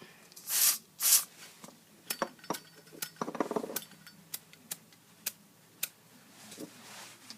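Sharp clicks and scrapes from a Zippo lighter being handled: two short hissing scrapes near the start, then a scattered run of sharp clicks with a brief rustle in the middle.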